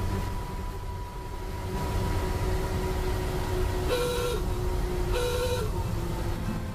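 A 1948 Ford F5 bus running down the road, its engine and drivetrain a steady rumble with a faint whine. About four seconds in the horn gives two short toots a second apart.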